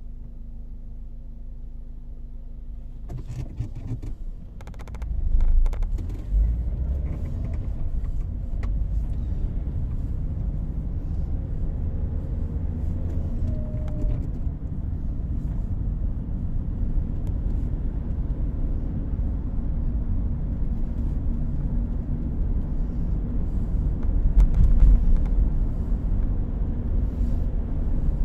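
Car engine idling with a steady low hum, heard from inside the cabin. After a few clicks about three seconds in, the car pulls away and a louder low rumble of engine and road noise sets in and holds steady while it drives.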